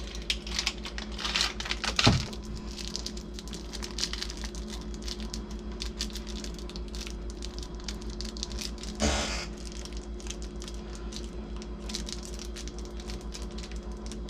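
Small parts in plastic packaging handled on a workbench: light clicks, taps and plastic crinkling, with a sharp knock about two seconds in and a louder rustle about nine seconds in. A steady low hum runs underneath.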